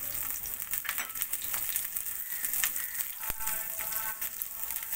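Chopped onion sizzling and crackling in hot oil in a nonstick wok as a wooden spatula stirs it, with a single sharp knock a little over three seconds in.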